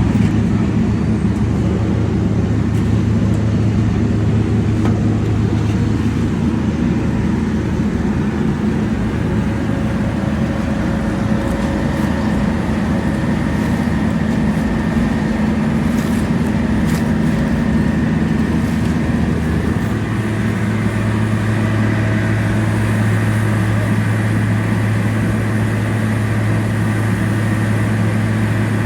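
Heavy diesel engine of road-paving machinery running steadily under load, with a constant low drone. The engine note steps up slightly about twenty seconds in.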